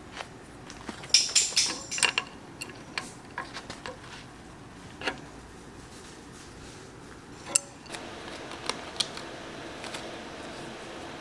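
Steel hand tools clinking and clanking against a steel bar clamped in a bench vise. A cluster of sharp metal strikes comes in the first couple of seconds, then scattered single clicks. After about eight seconds a steady background hum comes up, with a couple more light clicks.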